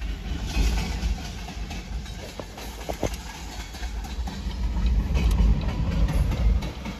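Freight train passing, led by an EMD GP60 and a GP25XE diesel locomotive: a steady deep rumble with a few sharp clicks of wheels on rail. The sound grows louder after about four seconds as the tank cars roll close by.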